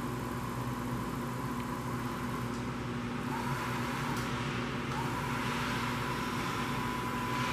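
Bridgeport Series 1 CNC vertical mill running under its control, the X and Y axis servo motors driving the table through ball screws: a steady machine hum with a thin high whine that comes in about three seconds in and steps up slightly about two seconds later.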